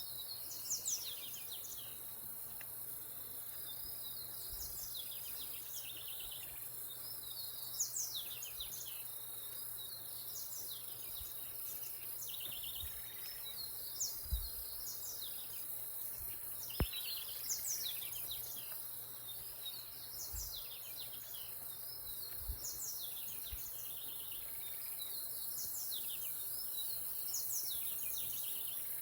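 Woodland ambience: birds calling over and over with short, high chirps and quick trills, over a steady high-pitched hiss of insects. A few soft low bumps come through now and then.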